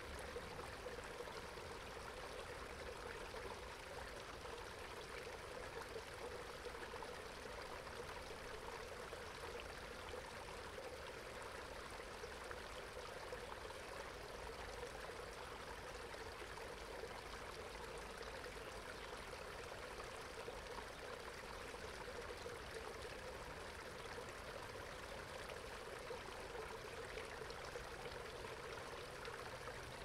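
Water running steadily out of a corrugated metal culvert pipe and trickling over rocks in a shallow channel.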